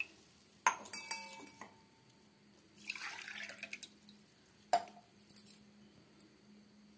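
Water poured from a small metal cup into an aluminium pressure cooker holding rice and milk. A sharp metal clink of cup against pot just under a second in rings briefly. There is a short pour about three seconds in and another clink near five seconds.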